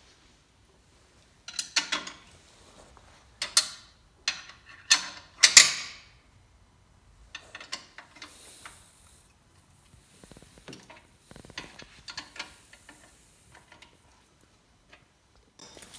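A 9/16 wrench works the motor plate bolts, making bursts of metallic clicking and clanking through the first six seconds, then lighter scattered ticks.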